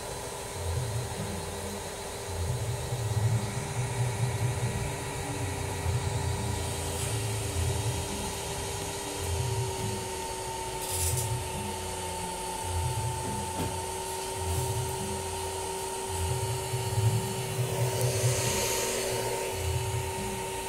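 Power inverter running under a load of several hundred watts: a steady electrical hum and whine whose pitch steps slightly lower about halfway through, as the load current rises. Irregular low rumbles come and go underneath.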